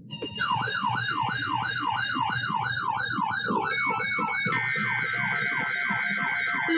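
Electronic siren tone wailing up and down about twice a second, over a low beat. A steady higher tone joins about two-thirds of the way through.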